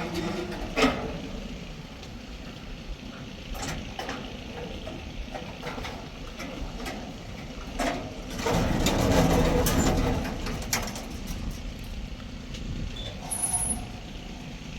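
Truck engine running steadily, with scattered sharp knocks and clanks. A louder surge of noise comes about eight to ten seconds in.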